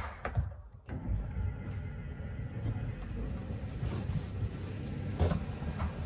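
An RV slide-out's electric motor hum cuts off with a click as the bedroom slide reaches full extension. Low uneven rumbling and a couple of light knocks follow near the end.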